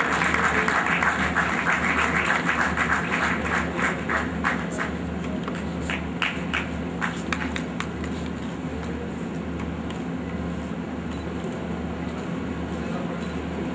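Audience applauding, thinning out to scattered claps and stopping about seven or eight seconds in, over a steady low hum.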